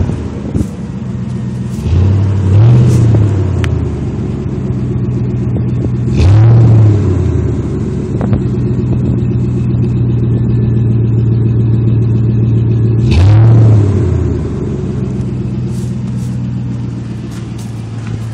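1999 Chevrolet C1500 Silverado pickup running through a Gibson aftermarket exhaust with dual tips: a steady idle, revved three times, about two, six and thirteen seconds in, each rev rising briefly and dropping back to idle.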